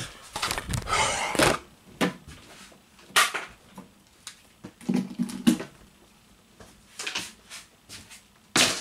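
Handling noise from small objects being moved about: a rustle, then scattered clicks and knocks, the sharpest just before the end.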